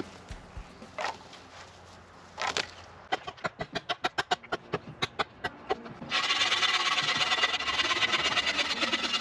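Hand saw cutting through a wooden pole: a few knocks, then quick regular strokes about five a second, then a loud, dense rasp of fast sawing that stops abruptly near the end.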